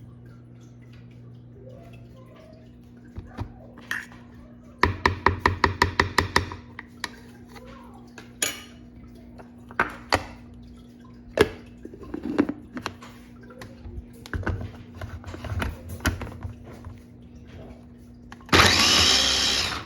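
Kitchen handling sounds over a steady low hum: a quick run of about ten clicks, scattered knocks and clatter, then a loud noisy burst lasting about a second near the end.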